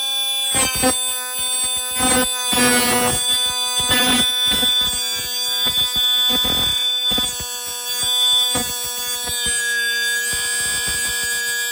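Power tool cutting iron: a steady high whine with evenly spaced overtones, broken by irregular bursts of grinding noise and sharp clicks. The pitch sags slightly near the end.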